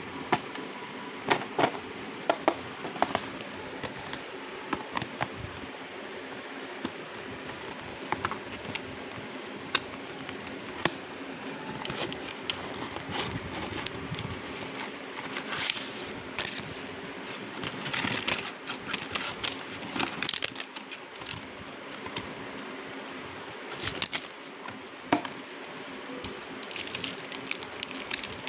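Cardboard craft-kit boxes being handled by hand: scattered taps and knocks, with stretches of rubbing and rustling. A faint steady hum runs underneath.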